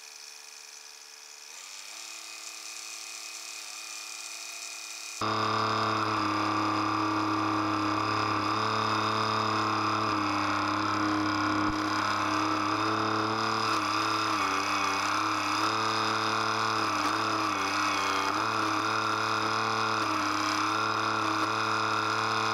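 A Kubota compact tractor's diesel engine runs while its backhoe is worked. It is faint at first, then much louder and closer from about five seconds in, its pitch wavering slightly as the levers are worked.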